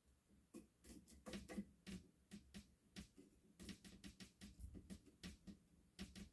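Faint, irregular clicks and taps of hands working wires and screws into the metal screw terminals of a fire alarm device's mounting plate.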